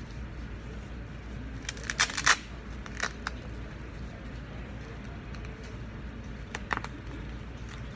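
Short clicks and rustles of something being handled: a cluster about two seconds in, a few more a second later, and another pair near the end, over a steady low hum.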